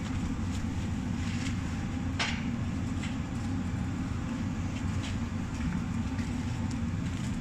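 Molten bell bronze bubbling and churning in the furnace as it is poled with a green birch log, a steady low rumble that is the gases and slag being driven out of the melt. A sharp crack comes about two seconds in.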